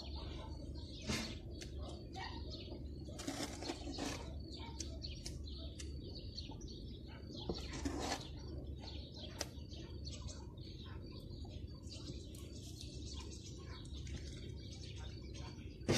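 Stone blocks clicking, knocking and scraping against each other as they are picked up and laid on a dry stone wall, in scattered short hits over a low steady hum.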